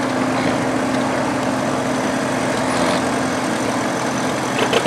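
Allis-Chalmers Model G tractor's small four-cylinder gasoline engine running steadily as the tractor drives past at low speed. Near the end the engine note turns to a quicker, pulsing beat.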